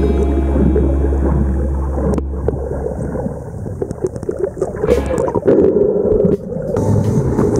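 Muffled underwater water noise picked up by a submerged camera, with gurgling and irregular rumbling and crackling, louder for a second or so past the middle.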